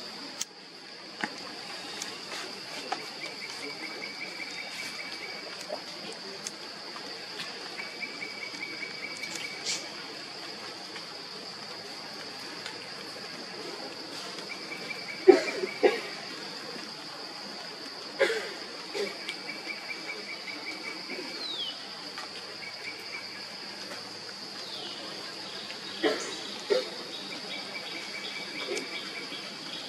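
Forest insects keep up a steady high-pitched drone, with short buzzing trills recurring every few seconds and two short falling whistles after the middle. A few sharp taps stand out, the loudest about halfway through.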